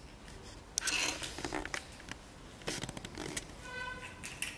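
Small plastic toy kitchen pieces being handled: light clicks, taps and rustling as they are picked up and knocked together, with a short high squeak about four seconds in.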